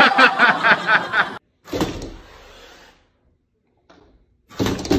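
Chatter of voices at first, then two sudden bangs against a glass patio door, each fading within about a second. The first comes just under two seconds in, the second near the end.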